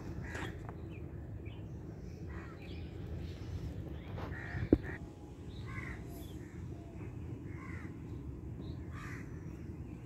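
Birds calling outdoors in short harsh calls, about eight times, over a steady low rumble, with one sharp click about halfway through.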